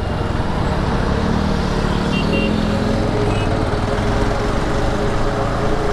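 Bajaj Avenger cruiser motorcycle riding in city traffic: its single-cylinder engine runs under a steady rush of wind and road noise, and the engine note climbs between one and two seconds in.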